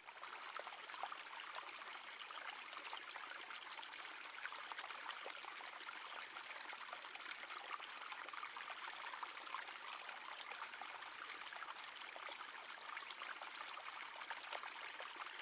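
Faint, steady trickling of a shallow creek running over stones.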